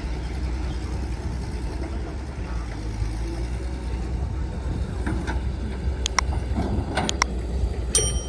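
Heavy earthmoving machinery's diesel engine running steadily with a low rumble, with several sharp metallic clicks in the last few seconds.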